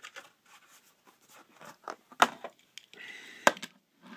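Scattered clicks and taps and a brief rustle as a die-cast Matchbox toy fire truck and its plastic and cardboard packaging are handled, with two sharper snaps about two and three and a half seconds in.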